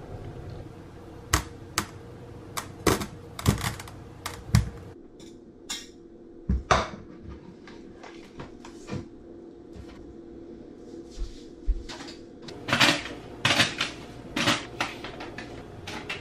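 Irregular sharp clicks and knocks of kitchen work at the counter: a knife and a wooden cutting board being handled. The knocks come in bunches, several in the first few seconds and another run near the end, over a faint steady hum.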